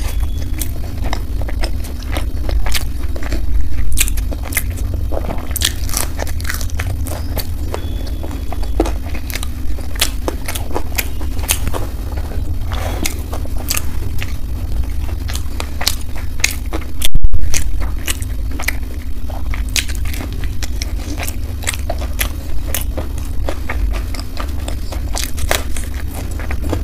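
Close-miked eating: bites and chewing of corn pizza, with irregular crunchy clicks and mouth sounds over a steady low hum.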